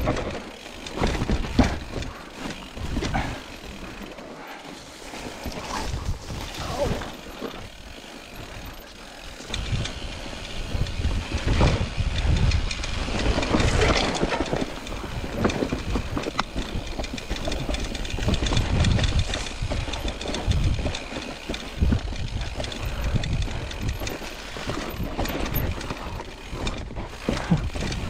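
Mountain bike being ridden over rough trail, its frame and parts rattling and clattering, with gusts of wind rumbling on the microphone.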